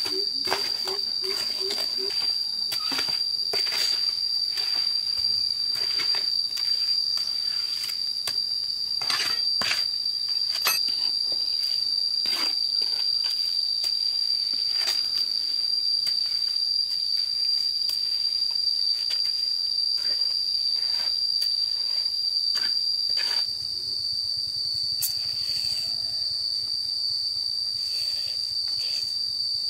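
Insects droning at one steady high pitch, with irregular sharp knocks and taps scattered over it, fewer after about 23 seconds. A short run of quick low pulses sounds in the first two seconds.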